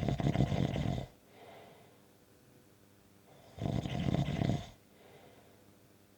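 Snoring: two snores, each about a second long and about three and a half seconds apart, with a much softer breath just after the first.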